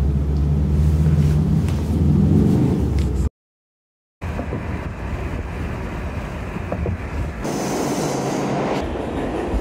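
A steady low hum, then about a second of dead silence. After that comes the rumble and rattle of a New York City subway car in motion, heard from inside the car, with a hiss that comes in for about a second and a half near the end.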